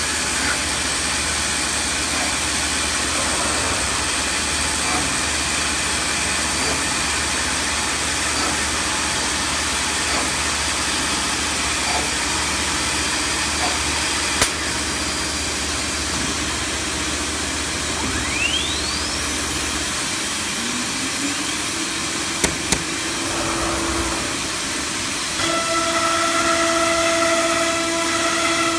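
Wood CNC router machinery running with a steady hiss, a few sharp clicks, and a whine that rises in pitch about two-thirds of the way through, settling into a steady high whine near the end.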